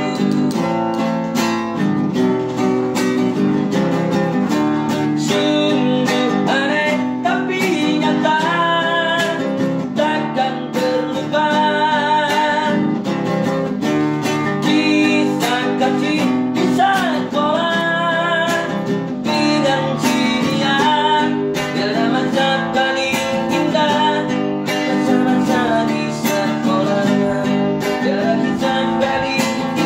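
Acoustic guitar strummed in a steady rhythm, with a singing voice carrying a wavering melody over it.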